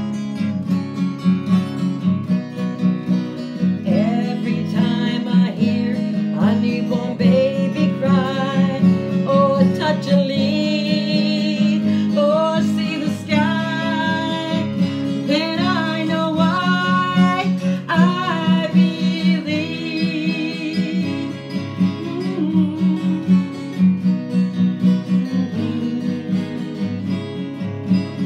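A woman singing a slow song while strumming an acoustic guitar. Her voice carries the melody through most of the stretch and drops out in the last few seconds, leaving the guitar strumming on alone.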